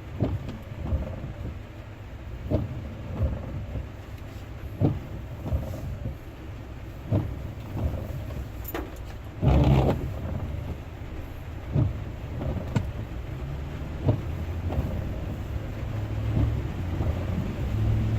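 Low vehicle rumble with sharp knocks every second or so, a loud burst of noise about halfway through, and the rumble growing stronger near the end.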